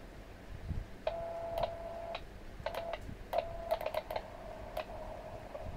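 Clicks of the uSDX transceiver's buttons and knob being worked to change band. A steady tone from the radio cuts in about a second in, drops out and comes back between the clicks, and runs on more faintly toward the end.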